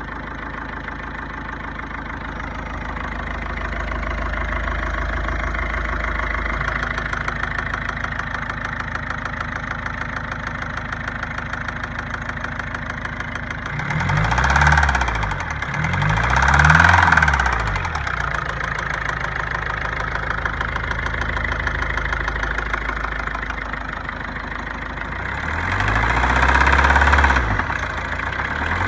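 2009 Ford Focus 1.6 diesel engine idling with a knock, which is the fault the owner is showing. It is revved briefly twice about halfway through and once more near the end, rising and falling in pitch each time.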